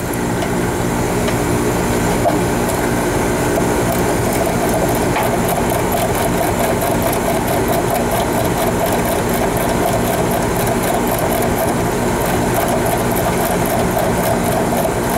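Air-conditioning condenser's scroll compressor and fan running with a steady hum, while a ratchet wrench clicks in a quick regular run as the liquid-line service valve is shut to start a pump down. The scroll compressor is damaged and pumping very little, which the technician traces to its internal relief valve.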